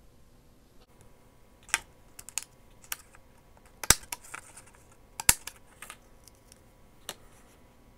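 A handheld craft paper punch snapping through paper: about seven sharp clicks at uneven intervals, the loudest two about four and five seconds in, with faint paper rustling between them.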